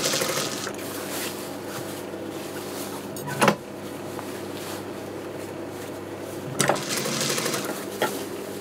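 Sewing machine stitching for under a second, then stopping while its motor keeps humming steadily as the fabric is shifted. A few sharp knocks come a few seconds apart, and there is a second short run of stitching about seven seconds in.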